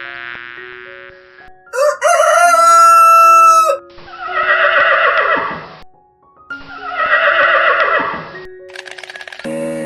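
A rooster crows loudly about two seconds in, followed by two more loud animal calls with a wavering pitch. Background music with slow held notes plays throughout.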